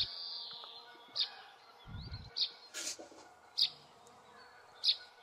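A bird calling: a drawn-out high note, then short, sharp high chirps repeated about once a second. A low thump comes about two seconds in.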